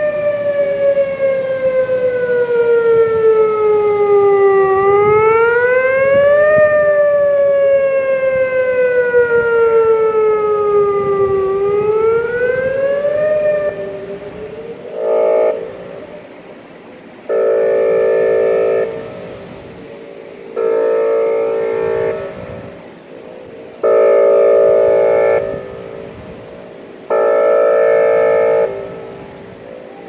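Outdoor tornado warning siren wailing, its pitch rising quickly and falling slowly about three times. It then switches to five steady horn-like blasts, each about a second and a half long with short gaps between them.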